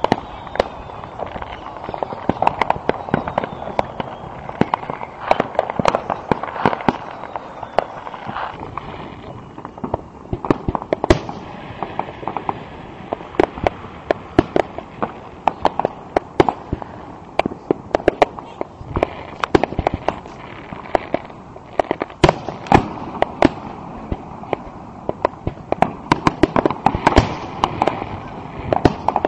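Aerial fireworks shells bursting and crackling in a dense, continuous barrage, with many sharp bangs, often several a second.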